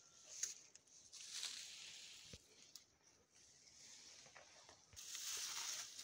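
Faint rustling with a few light clicks, growing louder from about five seconds in.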